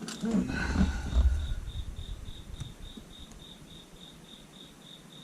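A cricket chirping steadily, a high pulse about four times a second. In the first second and a half it is joined by a burst of low thumps and rustling, the loudest sound here.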